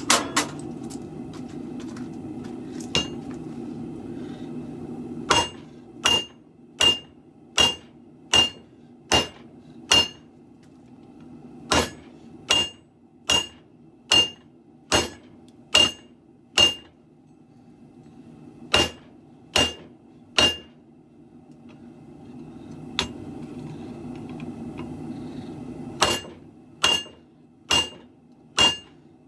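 Hand hammer striking the steel of a sword blade on an anvil, in runs of ringing blows at a steady pace of a little over one a second, with pauses between runs. A low rushing noise sits underneath at the start and again near the end.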